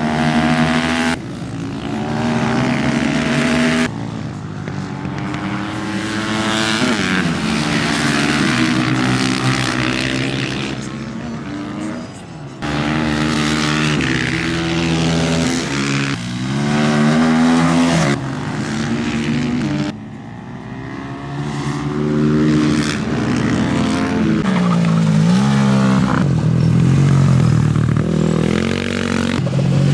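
Supermoto race motorcycles running hard, their engines revving up and dropping back again and again as they accelerate and brake. The sound changes abruptly several times from one stretch to the next.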